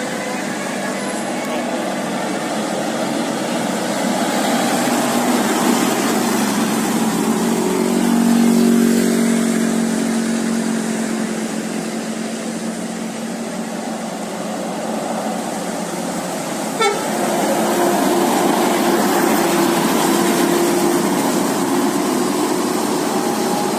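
A bus's musical 'telolet' air horn playing held tones over engine and traffic noise, in two spells: one in the middle and one running on near the end. A sharp click comes just before the second spell.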